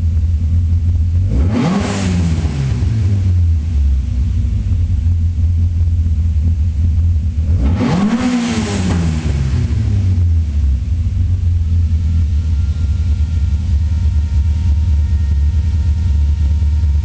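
Toyota 4A-GE twin-cam four-cylinder on Weber 45 carburettors idling and revved twice, about a second and a half in and again about eight seconds in, each time rising quickly and dropping back to idle. It is running a first try of a custom Megajolt ignition curve.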